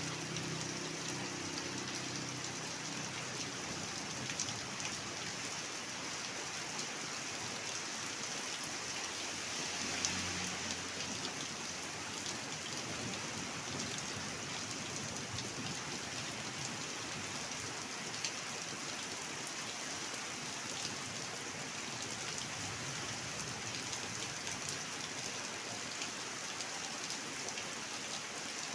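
Steady rain falling, with many fine individual drop ticks, and a brief louder gust of rain about ten seconds in.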